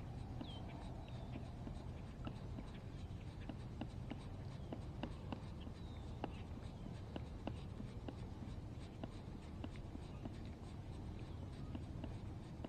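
Light, irregular clicking and ticking, a few ticks a second, over a low steady hum, as a baitcasting reel is cranked to bring a topwater frog back. A few short, high, falling chirps come near the start.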